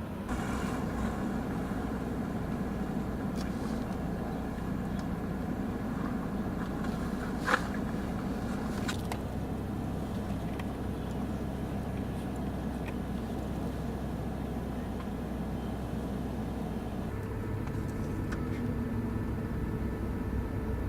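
Steady low motor-vehicle engine sound, with one sharp knock about seven and a half seconds in and a few fainter clicks.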